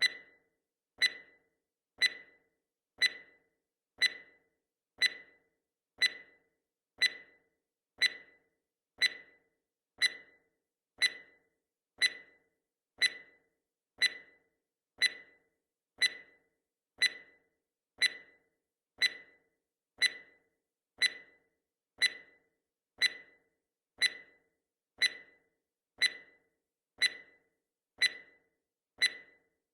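Countdown timer's clock-tick sound effect: one short, sharp tick every second at a perfectly steady pace.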